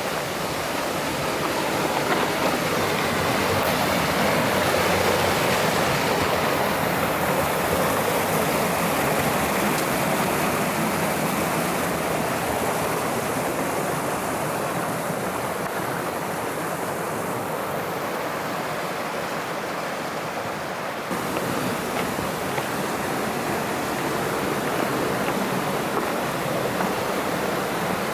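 Mountain stream water rushing steadily over rocks, with a sudden change in its tone about three-quarters of the way through.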